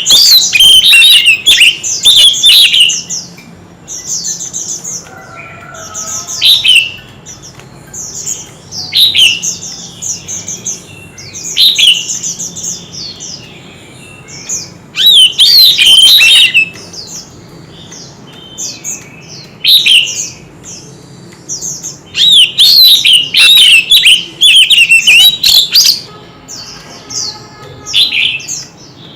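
White-rumped shama in full song: a long, varied run of rich whistled phrases that glide up and down, with loud bursts near the start, around the middle and in the last few seconds and softer phrases between.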